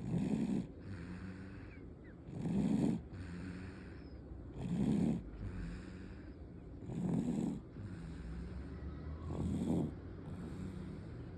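Sleeping baby snoring: five snores, one roughly every two and a half seconds, with quieter breathing between them.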